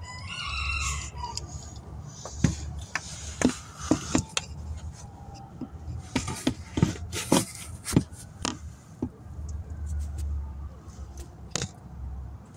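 A brief pitched call in the first second, then an irregular run of sharp clicks and knocks from parts and tools being handled around a car engine that is not running.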